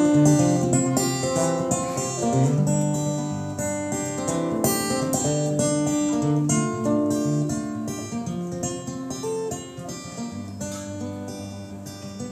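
Live acoustic guitar played without vocals, strummed and picked chords ringing in an instrumental passage of a song, growing quieter toward the end.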